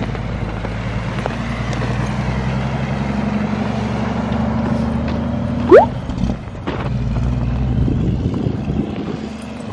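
Heavy truck engine running steadily, with a short rising squeal a little past halfway that is the loudest sound.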